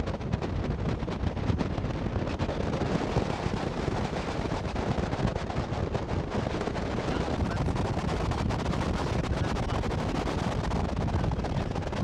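Steady, rough wind buffeting on the microphone, crackling throughout.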